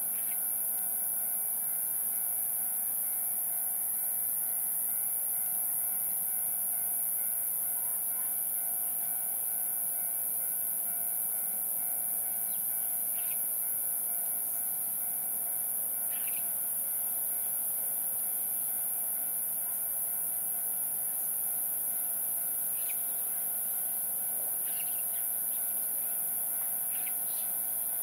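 Steady high-pitched hiss with a faint steady hum beneath it, and a few short bird chirps, sparse in the first half and more frequent near the end.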